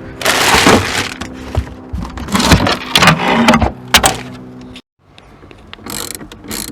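Background music with bursts of mechanical clatter from tools at work on the car battery as it is disconnected, and a sharp click about four seconds in; the sound cuts off abruptly near the end.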